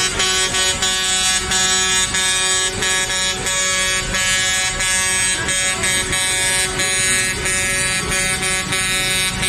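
Many vehicle horns honking together almost without a break, several held tones sounding at once with short dips every fraction of a second, over the running of motorcycles and cars in traffic.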